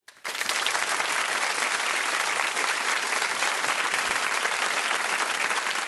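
Audience applause, a steady dense clapping that starts a moment in and cuts off suddenly.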